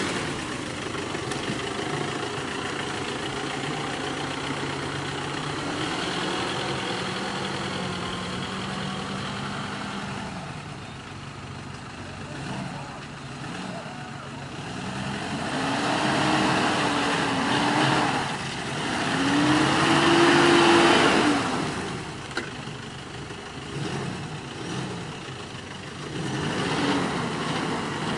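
Off-road 4x4's engine running, then revved hard twice in the second half, pitch climbing and falling each time, the second rev the loudest, with a few shorter blips of the throttle near the end.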